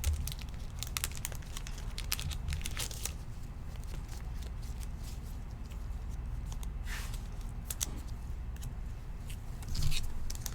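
Trading-card pack's foil wrapper crinkling and tearing, with light crackles and clicks from the cards and wrapper being handled.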